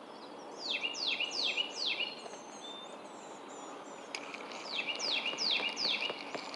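A songbird singing two phrases, each of four clear whistles sliding sharply downward, with fainter high chirps between them over steady outdoor background noise.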